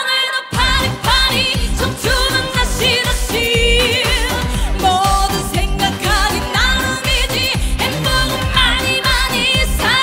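A woman sings a Korean trot song live into a microphone, holding notes with a strong vibrato, over an upbeat pop backing track with a steady dance beat. The beat drops out for a moment right at the start, then comes back in.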